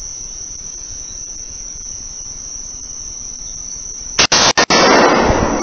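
Steady chirring of crickets, then about four seconds in a sudden, very loud 12-gauge shotgun shot. The shot overloads the scope-mounted camera's poor audio, which cuts out in a few brief gaps before loud noise carries on.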